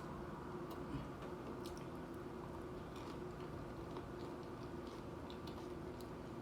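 Faint chewing of a mouthful of nachos: scattered soft clicks and mouth sounds over a steady low hum.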